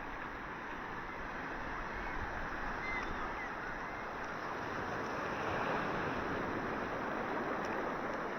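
Ocean surf washing onto a beach: a steady rush of waves that swells a little about midway.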